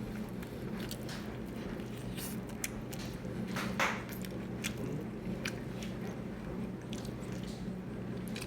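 A person chewing and biting food, with wet mouth smacks and short clicks scattered throughout, the loudest a little under four seconds in, over a steady low hum.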